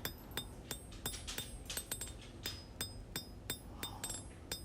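Hand hammer striking hot 1084 high carbon steel on an anvil, about four blows a second, each blow with a short metallic ring: the tip of a knife blade being drawn out.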